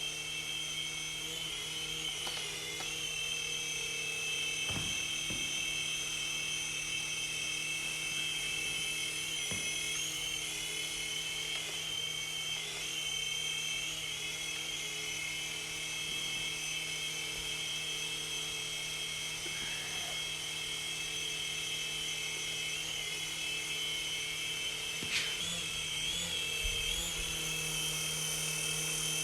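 Syma S40 toy RC helicopter in flight: the small electric motors driving its rotors give a steady high-pitched whine. The pitch wobbles briefly several times as the throttle and steering change.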